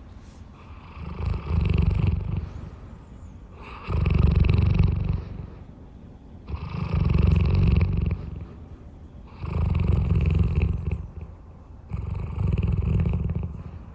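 A large dog snoring in its sleep: five long, low snores, one about every three seconds, with quiet breathing between them.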